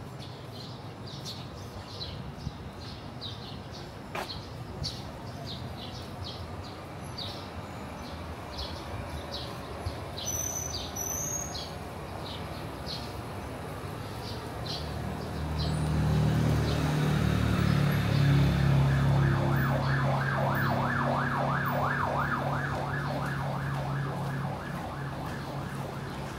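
Emergency-vehicle siren on a yelp setting, its pitch sweeping up and down about four times a second, over a vehicle's low engine hum that swells in and grows loud about fifteen seconds in. Before it, short high chirps repeat every half second or so.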